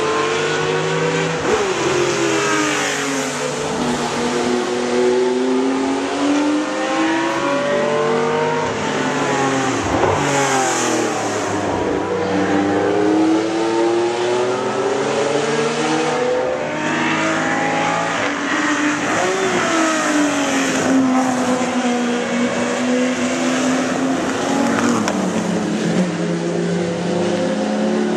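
Several racing cars' engines revving hard as they lap the circuit. Their notes climb through the gears and drop at each shift and under braking, overlapping one another, with one car passing close about ten seconds in.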